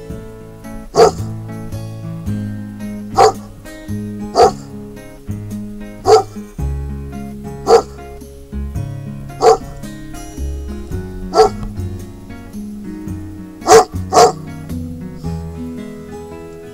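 A German Shepherd barking about nine times, single barks every second or two with a quick double bark near the end, over background music.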